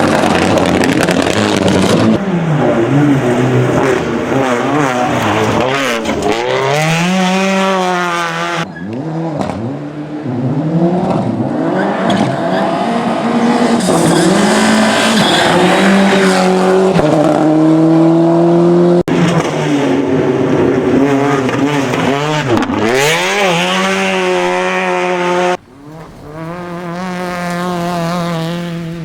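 Rally cars driven hard on a special stage, engines revving high and dropping again through quick gear changes, with some tyre squeal. The sound jumps abruptly several times from one car to another.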